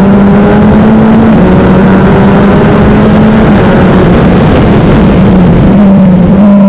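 Wolf GB08 sports prototype's engine running hard at high revs, heard onboard over heavy rumble and wind noise. The pitch holds nearly steady, with slight dips about a second and a half in and again about three and a half seconds in.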